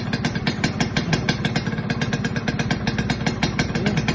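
Kawasaki Ninja 150 KIPS two-stroke single-cylinder engine idling steadily with a rapid, even beat.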